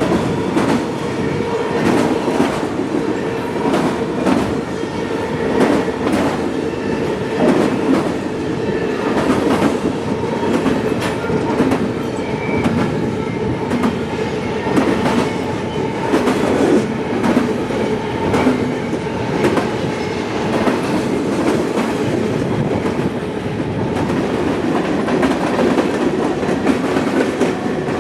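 Freight train cars rolling past at close range, their wheels clicking over rail joints in an uneven clickety-clack, with a faint steady ring from the wheels.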